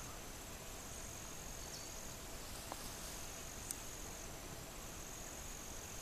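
Forest ambience with insects giving a steady, high-pitched trill over a faint hiss. There is one sharp click a little past halfway.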